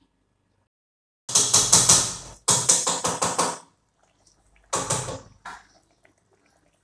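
Short bursts of music with a beat, starting suddenly about a second in, stopping, and coming back for two briefer bursts near five seconds.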